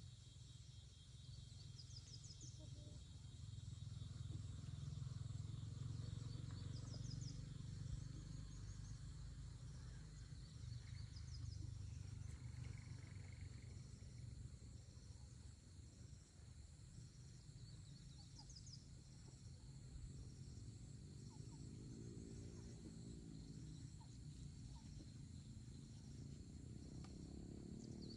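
Quiet outdoor ambience: insects trilling steadily high up, with short chirp groups repeating every few seconds, over a low rumble. A faint low pitched sound comes in during the last several seconds.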